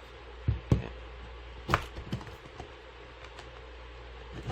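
Plastic clips of a Galaxy Note 10.1 2014 Edition tablet's silver rear case snapping loose as a plastic pry tool is pushed along the seam. A few irregular sharp clicks, the loudest in the first two seconds.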